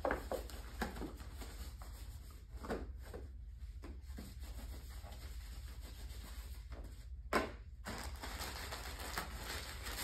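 Gloved hands crinkling and rustling plastic packaging and setting small items down on a tabletop, in a run of short irregular handling sounds with one sharper knock about seven seconds in, over a low steady hum.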